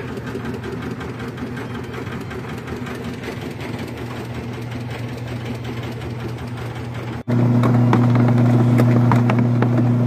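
The motor of a Costway twin-tub washing machine running with a steady hum. About seven seconds in, the sound breaks off suddenly and comes back as a louder, cleaner hum.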